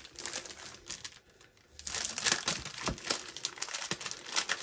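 Clear plastic packaging crinkling and rustling as a bagged scrapbook paper kit is handled, with a short lull a little over a second in before the crinkling picks up again.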